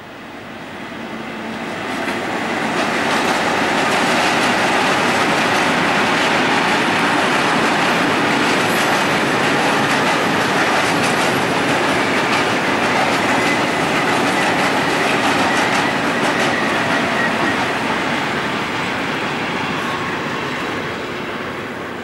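Freight train of an FS D 345 diesel-electric locomotive hauling hopper wagons, passing over a level crossing. The sound of the engine and of wheels running over the rails builds over the first few seconds, holds steady and loud for about fifteen seconds as the wagons go by, then fades away.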